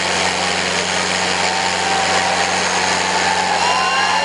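Two diesel tractors, a Sonalika and a Swaraj, running hard under load as they pull against each other in a back-to-back tug-of-war. The engines make a steady, dense noise. In the second half, whistle-like tones glide up and down above it.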